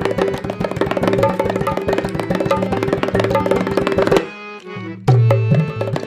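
Dholak-led Indian hand-drum music in a fast, even rhythm over sustained tones. It breaks off for under a second about four seconds in, then comes back with a deep bass stroke.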